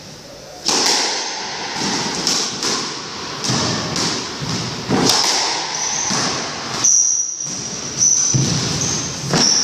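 Squash rally: a run of sharp smacks, about one a second, as the ball is struck by the rackets and hits the court walls, with short high sneaker squeaks on the wooden floor in the second half.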